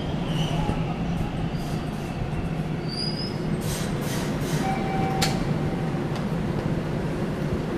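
Toronto TTC rail car running on the rails: a steady rumble and hum, with a few short, faint high wheel squeals.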